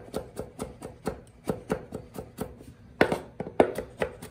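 Broad-bladed kitchen knife finely chopping garlic on a bamboo cutting board: quick knocks of the blade on the wood, about four a second, with two harder knocks near the end.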